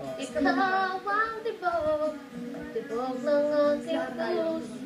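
A woman singing a melody with held, wavering notes, picked up off a television's speaker.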